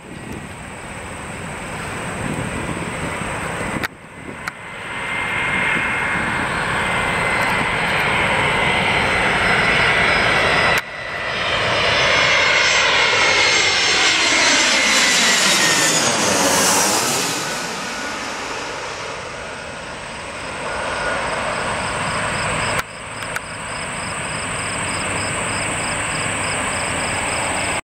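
A jet airliner's engines passing close by, with a steady whine, building to the loudest point about 16–17 s in and then easing off. The sound breaks off abruptly and picks up again a few times.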